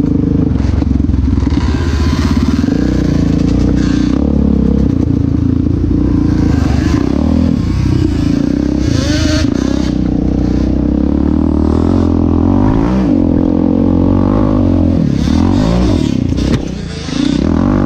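Yamaha Raptor 700R's single-cylinder four-stroke engine running hard on the trail, its note rising and falling as the throttle is worked. The engine drops off briefly about a second before the end, then picks up again.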